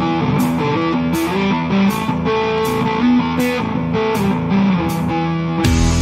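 Instrumental rock music: an electric guitar plays a melodic line of shifting notes over a steady beat, with a strike about every three-quarters of a second. A heavy low bass comes in near the end.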